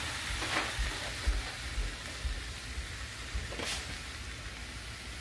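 Steady low sizzle of a pan heating on a gas stove, with two faint clicks.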